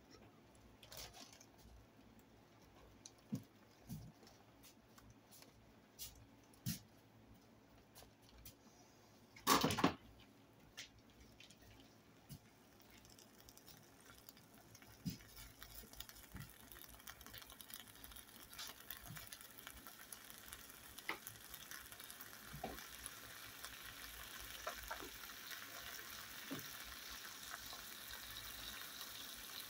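Raw bacon strips starting to sizzle in a nonstick frying pan as it heats, the crackle and spitting growing steadily louder through the second half. Before that, a few soft knocks, the loudest about ten seconds in.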